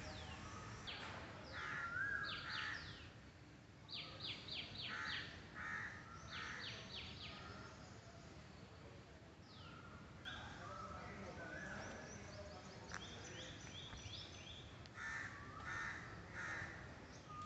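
Crows cawing among other birds calling in trees, with quick runs of sharp repeated notes and a few falling whistles throughout, over faint outdoor background noise.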